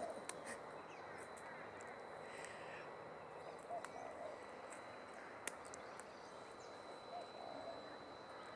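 Faint outdoor ambience with scattered distant bird calls, short chirps a few seconds apart, and a single sharp click about five and a half seconds in.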